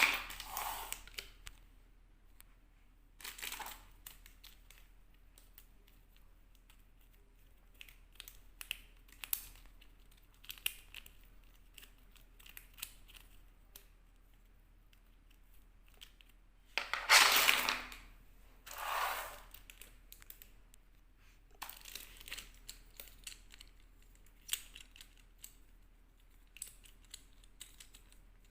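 Packaging being handled and torn open by hand in short, scattered bursts, with small clicks and taps between them. Two longer, louder bursts come a little past halfway.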